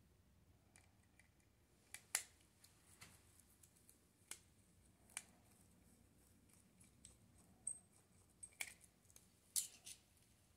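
Small scattered clicks and ticks of a precision screwdriver and loose metal parts as a compact digital camera's chassis and circuit board are taken apart, a sharp click every second or so, the loudest about two seconds in and near the end.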